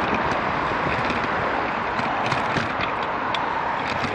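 Steady wind rush over the microphone of a camera on a moving bicycle, with scattered light clicks and rattles.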